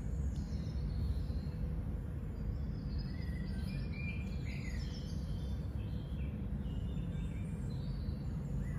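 Birds chirping in short, quick calls over a steady low background rumble.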